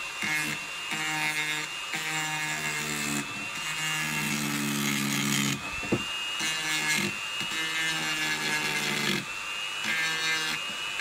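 Electric Dremel rotary tool with a grinding-stone bit sanding the inside curves of a pine toy car body: a steady high motor whine over a gritty grinding hiss, its pitch sagging as the bit bites into the wood, with a sharp click about six seconds in.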